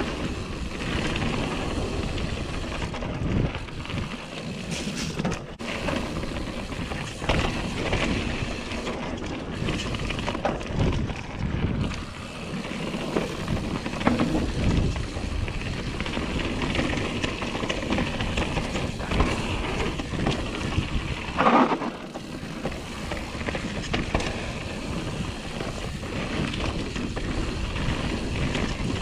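Canyon Torque mountain bike descending dirt singletrack at speed: knobby tyres rumbling over dirt and roots, the bike knocking and rattling over bumps, with wind noise on the microphone. A brief louder burst comes about two-thirds of the way through.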